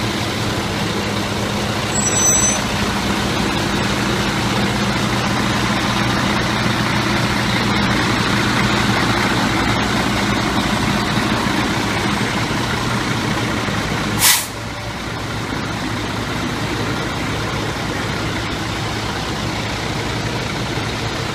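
Heavy-duty tow truck's diesel engine idling steadily, with one short, sharp air-brake hiss about fourteen seconds in. A brief high squeal about two seconds in.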